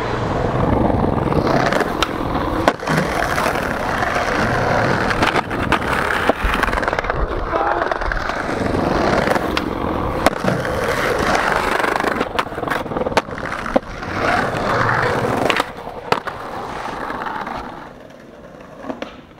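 Skateboard wheels rolling over hard ground, with sharp clacks of the board hitting the ground many times. The rolling fades near the end.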